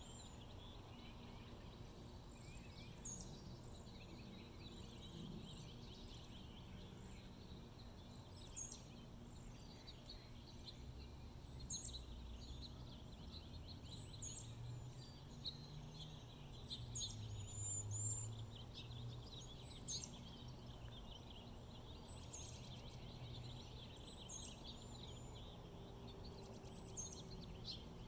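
Faint outdoor ambience: small birds chirping, short high down-slurred calls repeating every second or two, over a low steady rumble.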